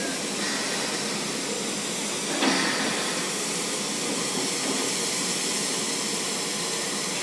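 JNR 8620-class steam locomotive standing at a platform with steam hissing steadily, briefly louder about two and a half seconds in.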